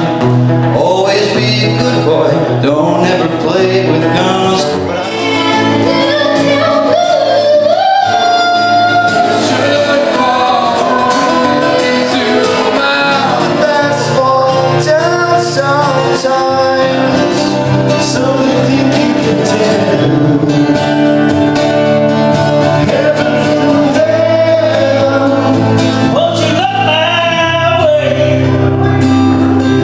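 A man singing while strumming an acoustic guitar, a live solo performance through a vocal microphone.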